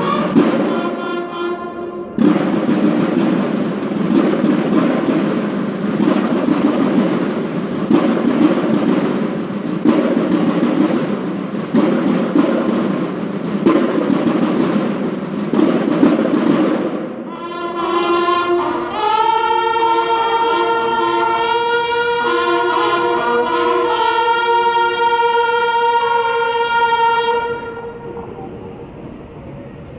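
Banda de guerra snare drums play a dense, rhythmic cadence for about the first seventeen seconds, after a few held bugle notes at the very start. The bugles then take over with long held notes in harmony and stop a couple of seconds before the end.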